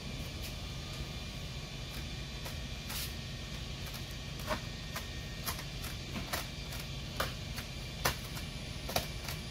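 Vinyl wrap film giving off short, sharp crackles and snaps at irregular moments as it is pulled tight and tacked over a boat hull, over a steady low hum.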